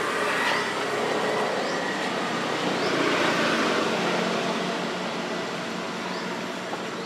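A motor vehicle passing by, its engine and road noise swelling to a peak about three seconds in, then slowly fading.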